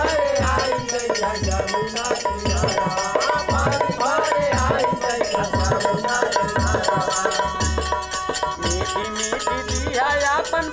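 Bhojpuri folk song: men singing to the beat of a dholak drum, with deep thuds, and small brass hand cymbals (manjira) clashing steadily.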